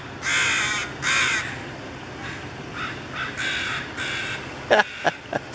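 Common ravens calling from the trees around a deer carcass. Two loud caws come in the first second and a half, fainter calls follow through the middle, and a few sharp clicks come near the end.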